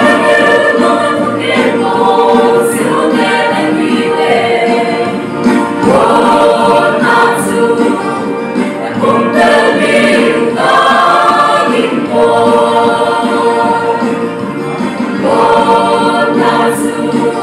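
Mixed choir of young women and men singing a hymn together, in phrases with short breaks between lines.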